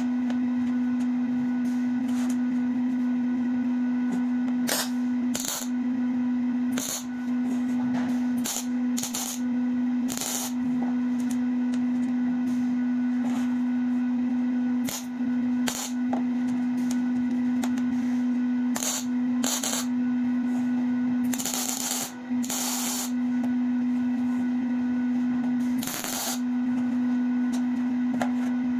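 MIG welder tack-welding small steel nuts and bolts: a dozen or so short crackling bursts of the arc, most under a second, with two longer welds past the middle. A steady hum runs underneath throughout.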